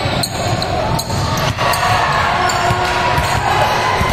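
A basketball bouncing on a gym floor: a few sharp thuds over the steady din of the gym.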